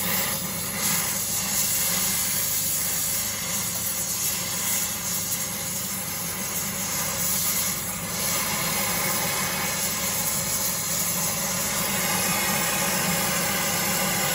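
Oxy-fuel cutting/welding torch flame hissing steadily as it heats a steel horseshoe and melts a coarse Drill Tec traction rod onto it.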